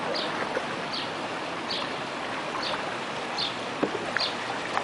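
Steady rushing of water from a small stepped cascade beside the canal, with a faint short high chirp repeating a little more than once a second.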